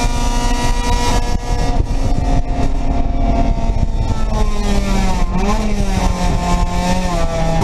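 Race car engine running hard, heard from inside the stripped cabin with road and wind noise. Its pitch holds steady, drops a little about halfway, dips and rises briefly about five seconds in, then slowly falls.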